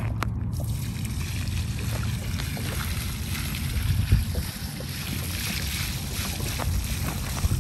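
Gray water pouring out of a plastic jug onto dry sandy ground, as a steady splashing hiss. Wind buffets the microphone with a constant low rumble.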